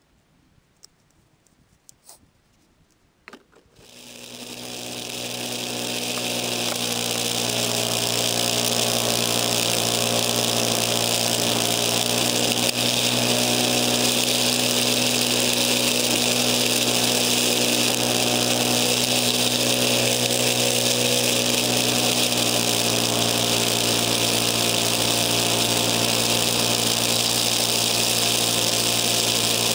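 Craftsman snowblower starting about four seconds in after a few small clicks at the controls, building up over a few seconds, then running steadily as it throws snow. It is heard through a poor camera mic mounted on the handlebars.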